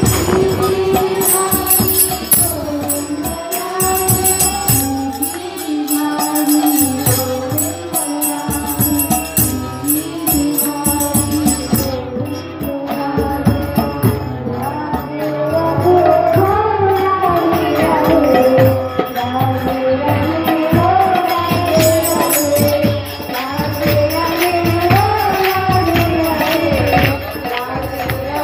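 Devotional kirtan: women singing a chant into microphones, with a harmonium and percussion keeping a steady beat.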